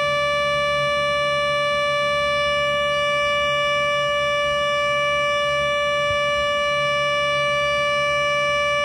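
Synthesized imitation of a Federal Sign & Signal Thunderbolt 1000 civil-defense siren, held at one steady pitch with no rise or fall and a rich stack of overtones, played back through laptop speakers.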